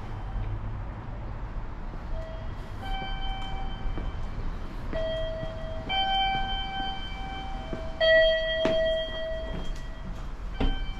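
Aichi Loop Railway train with its low running rumble, under a series of steady electronic notes of about a second each, one after another at different pitches, with a louder note about eight seconds in.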